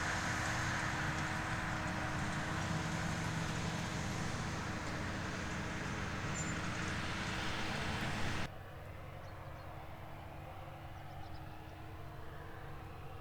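Fendt 936 tractor engine running steadily under load while pulling an eight-furrow plough. A little over halfway through, the sound cuts suddenly to a quieter, more distant tractor engine.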